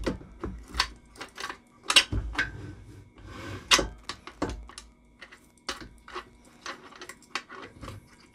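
Irregular metallic clicks and knocks from the steel frame of a seated calf raise machine as the spring-loaded adjustment pin is turned clockwise until tight, taking the wobble out of the frame. The loudest knocks come about two seconds in and again near four seconds.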